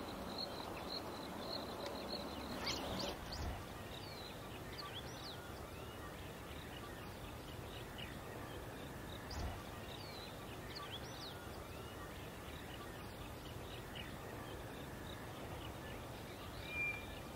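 Quiet outdoor bush ambience: scattered short bird chirps and whistles over a faint steady background hiss, with a thin steady high tone in the first three seconds.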